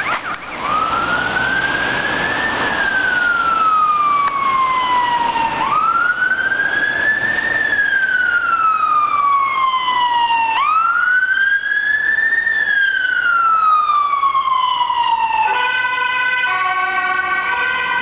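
Police car siren wailing in three slow cycles, each rising for about two seconds and falling for about three, with a fainter second siren sweeping at a higher pitch. A few seconds before the end it switches to a choppy pattern of quickly alternating steady tones.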